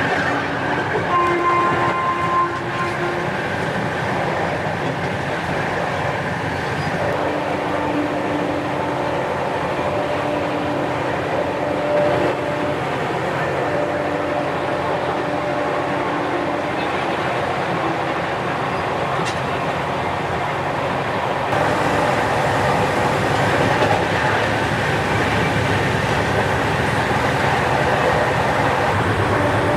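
Passenger train running at speed, heard from its open doorway: a steady rumble of wheels on the rails with rushing air. A horn sounds in several blasts of a second or two each.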